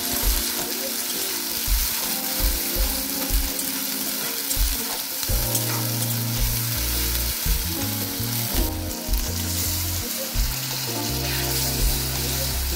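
Green masala paste sizzling and frying in hot oil in a metal wok. A metal spatula stirs it, scraping against the pan at regular strokes.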